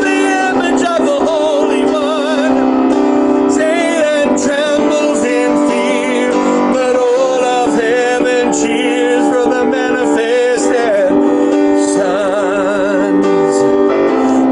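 Worship song: a solo voice singing long held notes with a wide vibrato over sustained keyboard chords.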